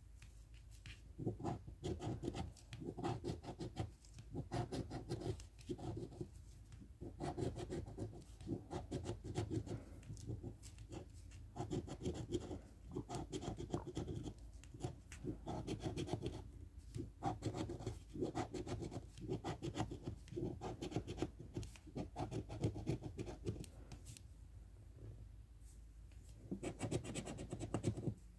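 A round scratcher tool scraping the silver coating off a lottery scratch-off ticket in runs of rapid strokes. Each run lasts about a second with short pauses between, and a longer pause near the end comes before a last run.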